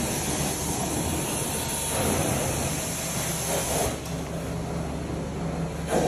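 Hydro-Force carpet extraction wand pulled across carpet: a steady suction hiss over the low hum of the cleaning machine, swelling briefly a couple of times as the wand strokes the pile.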